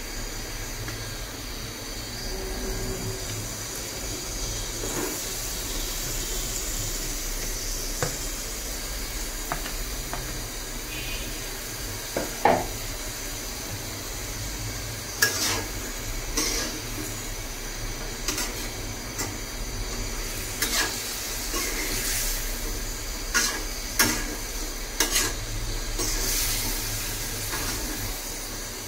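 Chicken and potato curry sizzling in an aluminium pot, a steady hiss, while a metal spatula scrapes and knocks against the pot. The knocks come now and then at first and more often in the second half.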